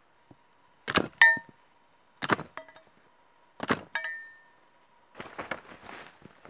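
Three sets of sharp knocks, each with a short metallic ring, about a second and a half apart, then a quick run of footsteps crunching through dry leaf litter near the end.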